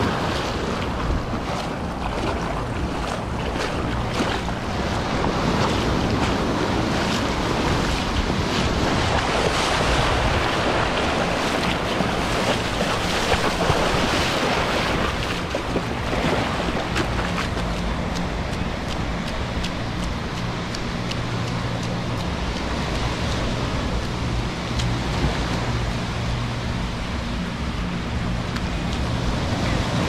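Small waves washing in over a sandy beach in a steady rush, with wind buffeting the microphone in a low rumble.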